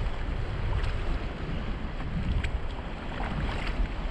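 Wind buffeting the microphone with a steady low rumble, over a few soft splashes of feet wading through shallow reef tide pools.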